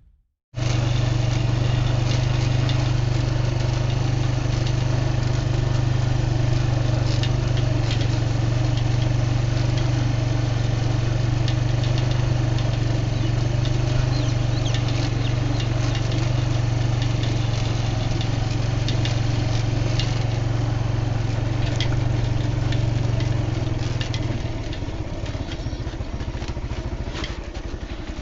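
A small engine idling steadily, with a strong low hum; it weakens a little near the end.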